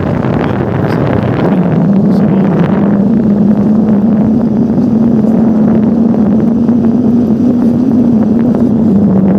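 Motorcycle engine running under way, its note rising about a second and a half in, holding steady, then dropping near the end.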